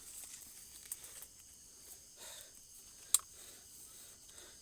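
Night chorus of crickets and other insects: a steady high trill. A single sharp click cuts in about three seconds in, with faint rustling around it.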